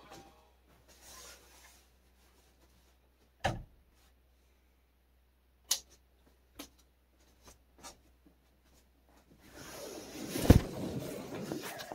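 Handling noises in a small room: a few scattered sharp knocks and clicks, then a couple of seconds of rustling with one heavy thump near the end.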